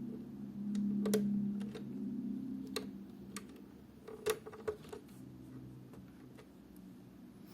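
Irregular sharp clicks and ticks, a dozen or so at uneven spacing, over a low steady hum that swells for a moment about a second in.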